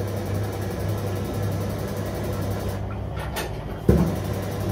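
Kitchen range-hood extractor fan running with a steady hum and whoosh. A single knock about four seconds in.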